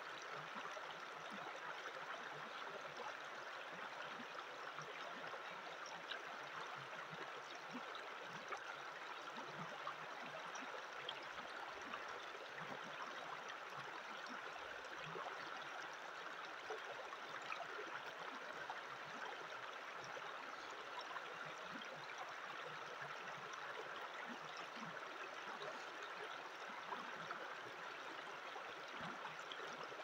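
Shallow mountain stream flowing over a stony bed, a steady rush of running water.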